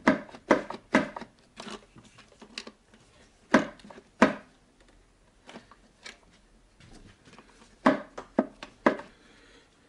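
Sharp, irregular clicks and knocks of a wrench and metal and plastic engine parts as a bolt on the engine is worked loose by hand, with a pause in the middle and a quick cluster near the end.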